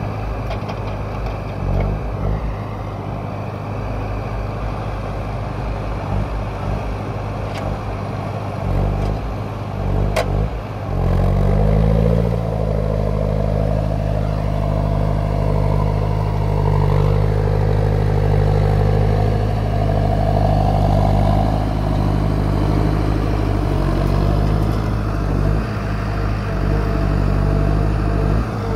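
Timbear mini forwarder's diesel engine running steadily, then revving up about eleven seconds in and holding the higher revs as the loaded machine moves on its tracks, with a wavering whine above the engine note. A single sharp click sounds shortly before the revs rise.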